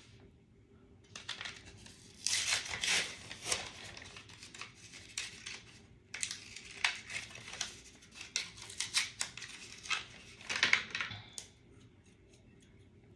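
Packaging of a liquid lipstick being torn open and handled: a run of crinkling, tearing and crackling sounds with sharp clicks, in two busy stretches, stopping about a second and a half before the end.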